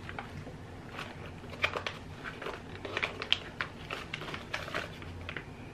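A cardboard snack box and the foil bag inside it being torn open and handled, with irregular crinkles and small sharp tearing clicks.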